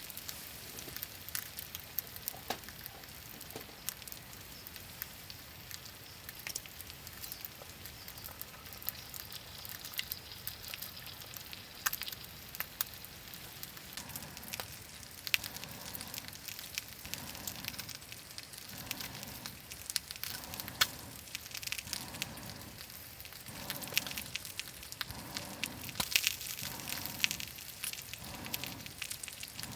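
Wood campfire crackling and popping, with sharp irregular snaps over a steady hiss. From about halfway a soft, lower-pitched sound repeats roughly once a second.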